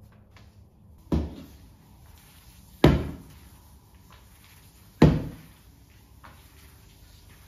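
Three sharp knocks, roughly two seconds apart, each ringing out briefly.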